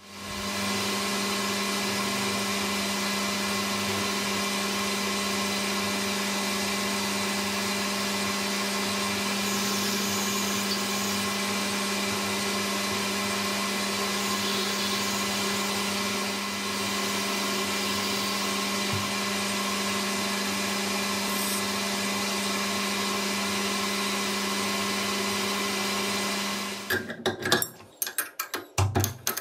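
Metal lathe running steadily with an even motor hum, spinning a small brass part held in a collet chuck. It shuts off about 27 seconds in, followed by a few clicks and knocks.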